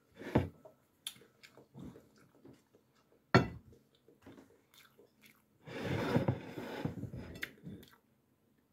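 Close-up chewing and mouth sounds of someone eating rice and fish, with small clicks of a metal spoon in a ceramic bowl. A single sharp clink comes a little over three seconds in, and the chewing gets louder for about two seconds from around six seconds in.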